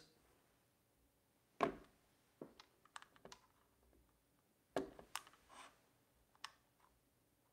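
Sony ZV-E1 and A7C II camera bodies handled and set down on a wooden desk: a scattering of faint knocks and clicks, the two loudest about one and a half and five seconds in.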